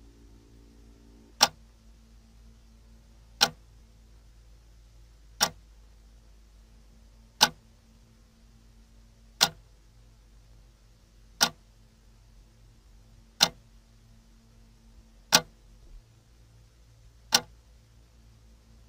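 A single sharp clock tick repeating evenly every two seconds, nine times, over a faint, steady low drone.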